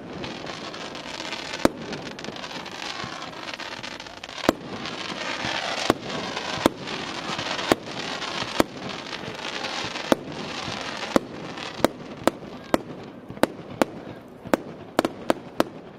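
Aerial fireworks shells bursting in a string of sharp bangs, irregularly spaced and coming faster in the second half, over a continuous crackling hiss from the burning stars.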